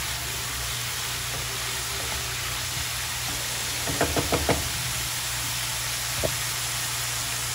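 Onions frying in oil in a pan, a steady sizzle. About four seconds in there is a quick run of knocks of a utensil against the pan, and one more knock comes a couple of seconds later.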